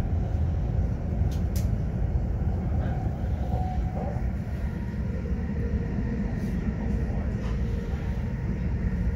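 Passenger train running along the track, heard from inside the carriage: a steady low rumble of wheels on rails, with a faint steady hum above it and a couple of light ticks about a second and a half in.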